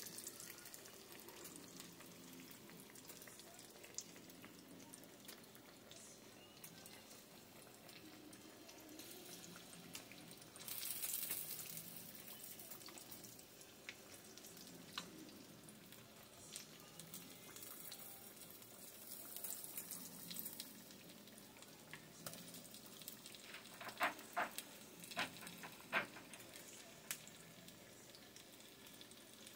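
Catfish frying in a pot of oil: a faint, steady sizzle, with a louder stretch of hissing about eleven seconds in. Scattered clicks and taps run through it, a few sharper ones near the end.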